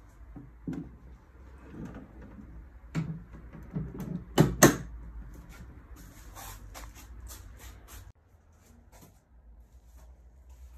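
Hard plastic Honda motorcycle case being handled and its lid shut: a few knocks, then two loud sharp snaps close together about four and a half seconds in as the lid latches, followed by lighter clicks and taps on the shell.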